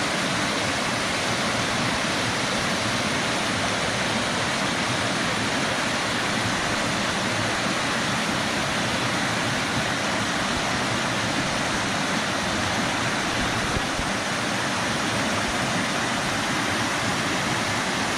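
Steady rush of a small waterfall pouring into a stream.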